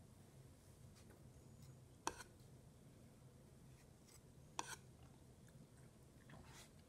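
Two short, crisp snaps of a small carving knife cutting through raw zucchini, about two and a half seconds apart, over a faint low hum.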